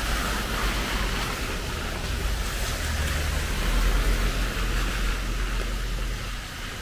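A car drives slowly past close by on a wet street, its low engine rumble and tyre hiss swelling to loudest about four seconds in and then easing off. A steady hiss of rain and wet pavement runs underneath.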